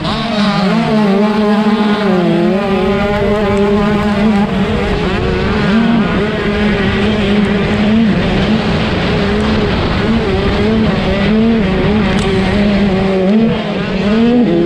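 125cc two-stroke motocross bike engine at racing revs, heard from the rider's onboard camera. It is held high and steady, with short dips and surges in pitch as the throttle is worked, over a constant rushing noise.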